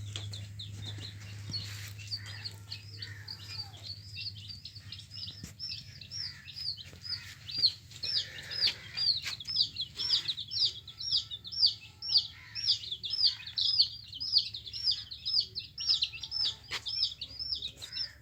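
Baby chicks peeping: a steady run of short, high chirps that fall in pitch, two or three a second, growing louder from about six seconds in.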